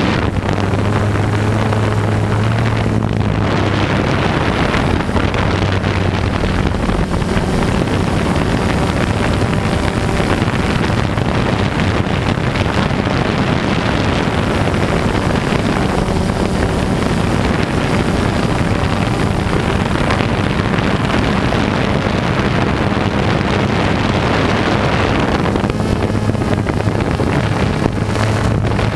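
Quadcopter motors and propellers buzzing in flight, heard close up from the camera under the craft, with wind rushing over the microphone. The hum's pitch wavers as the throttle changes and grows stronger near the end.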